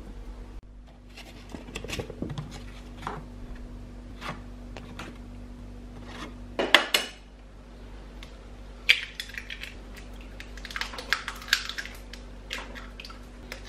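Kitchen clatter of utensils and containers knocking and clinking against a Thermomix's stainless-steel mixing bowl and the counter as cake ingredients go in. The loudest knock comes about seven seconds in, followed by a quick run of taps and clicks. A faint steady hum runs underneath.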